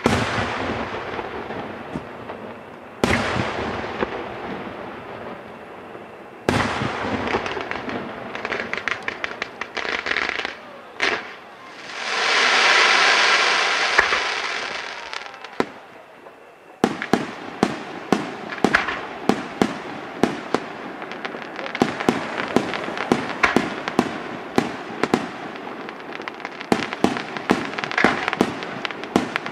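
Aerial firework shells bursting: a few sharp bangs seconds apart with crackling between them, and a swelling hiss lasting a few seconds near the middle. Past the halfway point comes a rapid barrage of bangs, several a second.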